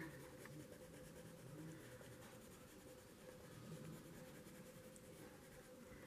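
Faint, steady scratching of a Derwent watercolour pencil shading colour onto paper.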